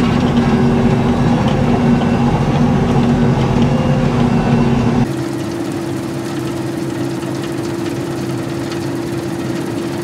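Combine harvesters running while harvesting: engine and threshing machinery with a steady hum. About halfway through, the sound changes abruptly to a second combine, a little quieter and with one steady tone.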